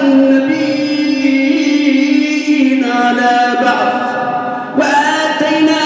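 A man reciting the Quran in a melodic chant (tajwid), holding long drawn-out notes with slow shifts in pitch. He takes a brief pause near the end before starting a new phrase.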